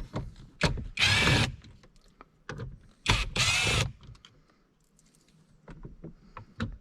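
Cordless drill-driver spinning in three short bursts, about a second in and twice more a little after three seconds in, backing out small screws, with scattered clicks and knocks of the tool against the parts.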